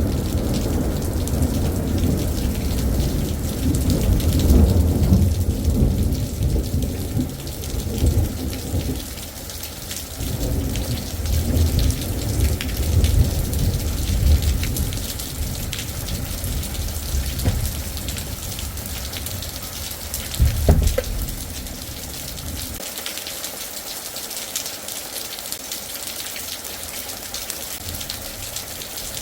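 Thunderstorm: steady rain falling with long rolling thunder that rumbles on and off for about twenty seconds, then dies away while the rain keeps on. A brief sharp sound stands out near the end of the thunder.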